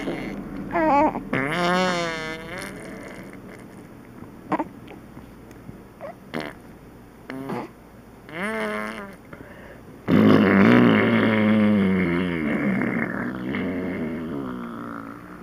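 Vocal sound effects made with the mouth: a string of wobbling, pitch-bending noises, several short ones and then a longer, louder one beginning about ten seconds in.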